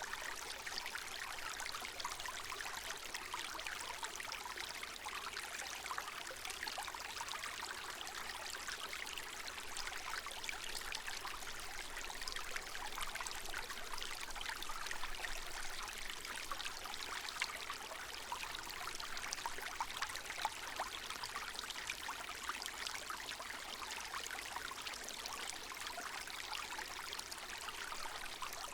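Small woodland stream running over stones, a steady babble with many small trickles and splashes.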